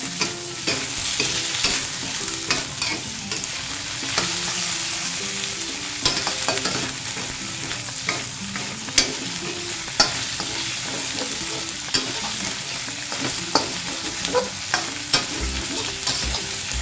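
Catfish pieces frying and sizzling in a wok as they are stir-fried, with a metal spatula scraping and clinking against the wok in short, irregular strokes.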